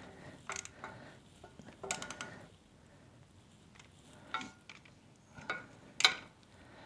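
Scattered metallic clicks and clinks of a ratchet and socket being fitted onto and turned on the oil filter cover nuts of a Suzuki GS500 engine. There are about half a dozen separate taps, the sharpest about six seconds in.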